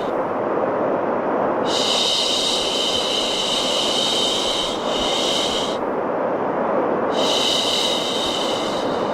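Long 'shhh' shushing sounds, each about four seconds, repeating every five and a half seconds or so: one from about two seconds in to about six, the next starting about seven seconds in. Steady white noise runs underneath.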